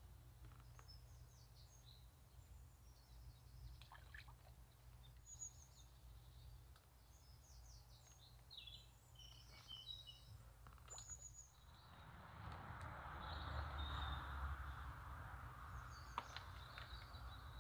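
Faint birdsong: small birds chirping and twittering in short repeated calls. About twelve seconds in, a soft rushing noise with a low rumble swells for a few seconds and fades again.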